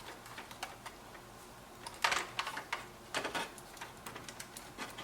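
Light plastic clicks and taps from the plastic housing of a Ford overhead console display being worked loose at a clip, with a cluster of sharper clicks about two seconds in and another just after three seconds.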